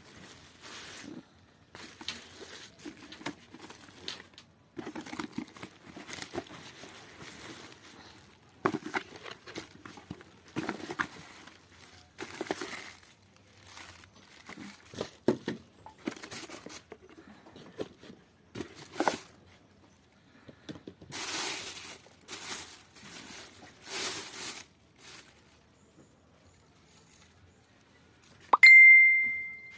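Bubble wrap and a cardboard box being handled and pulled open, crinkling and rustling in irregular bursts. Near the end a sudden short high tone sounds, the loudest thing here.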